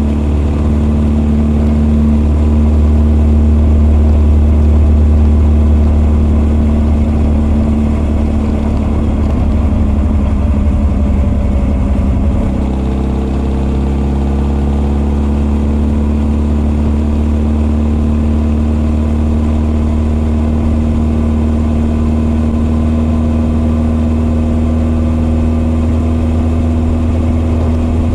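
Honda CB1300 SF inline-four with open Keihin FCR41 carburettors and an r's gear Wyvern full exhaust, running at a steady, moderate engine speed with intake and exhaust both heard. About twelve seconds in the note changes and eases down, then it holds steady again with a slight rise.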